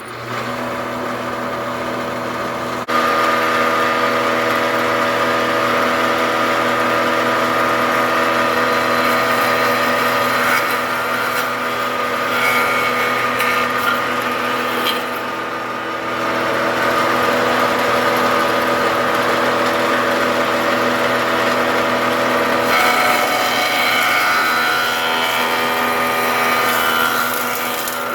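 Electric power sander running steadily against oak boards, stripping old grime down to bare wood. It is a continuous motor hum that gets louder about three seconds in.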